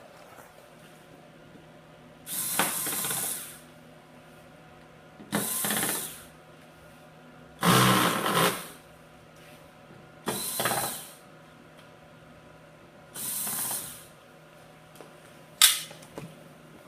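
A power screwdriver running in five short bursts of about a second each, a few seconds apart, backing screws out of a TV backlight module. A sharp click follows near the end.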